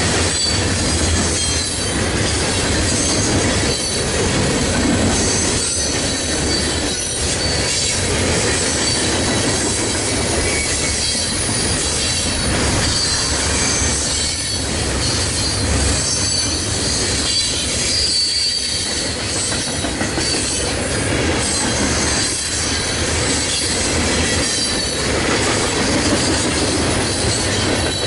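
Union Pacific freight train cars rolling past: a steady din of steel wheels on rail with scattered clacks and a faint high-pitched wheel squeal.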